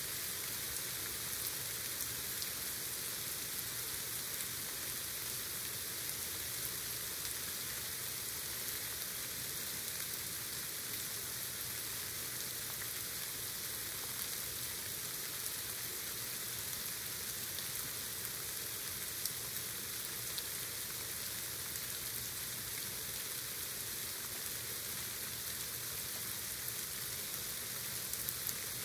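Heavy rain pouring down steadily: a dense, even hiss of drops with faint scattered ticks of individual drops hitting nearby surfaces.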